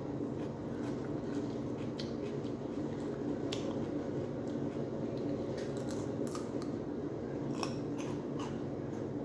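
Crisp crunches of raw cucumber being bitten and chewed close to the microphone, coming at irregular moments, over a steady low hum.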